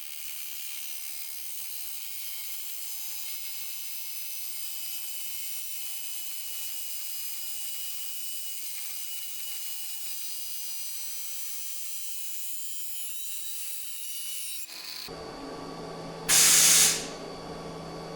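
A machine running steadily with a thin high-pitched whine, changing in character about fifteen seconds in, followed near the end by a short, loud hiss lasting about a second.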